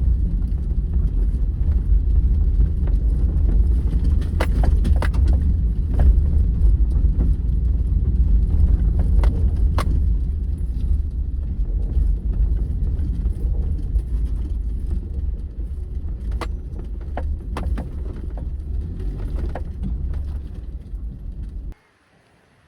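Steady low rumble of a car on the move, heard from inside the car, with scattered light clicks and rattles. It cuts off suddenly near the end.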